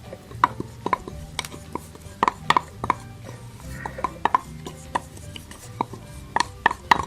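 Irregular light clinks and taps of a utensil against a mixing bowl, a few a second, while tapioca starch is being added to the batter.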